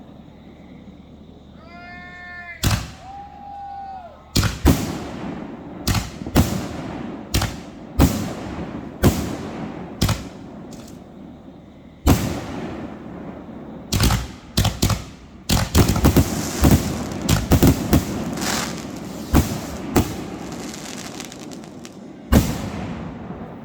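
Fireworks going off in a long series of sharp bangs, each with a short echo and some with crackling, coming in quick clusters near the middle. A brief pitched sound rises and falls about two seconds in, before the first bang.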